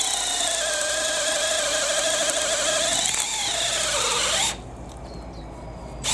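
Makita XPH07 brushless hammer drill in high gear driving a 10 mm auger bit into timber: a steady motor whine that dips sharply in pitch about four seconds in, then stops. A short second run of the drill comes right at the end.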